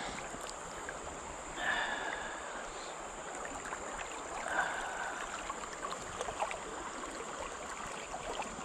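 River water flowing steadily, with a couple of brief higher-pitched sounds about two and five seconds in.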